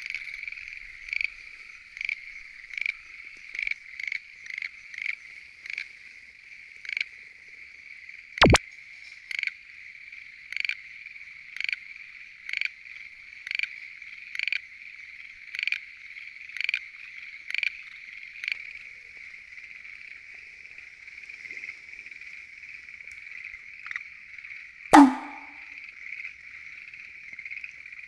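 A dense chorus of tree frogs calling steadily, with one nearer male repeating short calls about twice a second for the first two-thirds. There is a sharp knock about a third of the way in, and near the end a loud thump with a sound falling in pitch.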